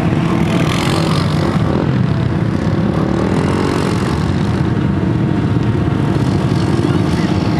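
Engines running loudly and steadily, with an ATV's engine rising and falling in pitch as it is driven in slides around the cones.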